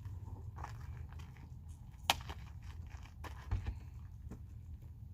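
Travel trailer exterior storage compartment being handled and shut: scattered small clicks, one sharp click about two seconds in and a low thump about a second and a half later, over a steady low rumble.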